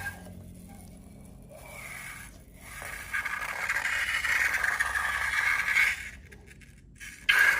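Slime being worked by hand or tool: scraping, crackling handling noise in stretches, loudest from about three seconds in and again near the end.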